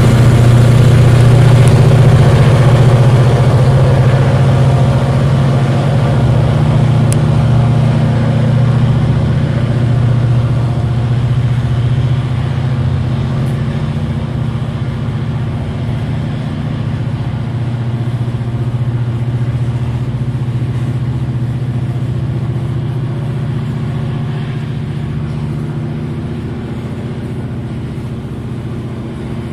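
Loaded coal train running past: a steady low diesel engine hum with the rumble of the hopper wagons, slowly fading as the train draws away.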